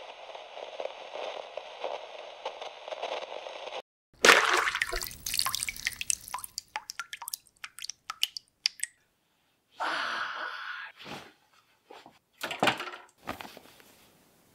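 Liquid splashing and dripping: after a steady hiss lasting about four seconds, a sudden run of irregular wet splats and drips, with a few more bursts later.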